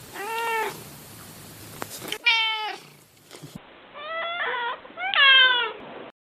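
Kitten meowing: four separate meows, each rising then falling in pitch, about a second and a half to two seconds apart. The last is the loudest, and the sound stops suddenly near the end.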